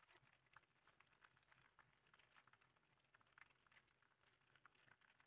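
Near silence, with faint scattered small ticks and clicks.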